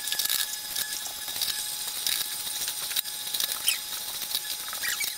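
Vertical slow (masticating) juicer running, its auger crushing fibrous celery stalks: many small crackles and clicks over a faint steady motor whine.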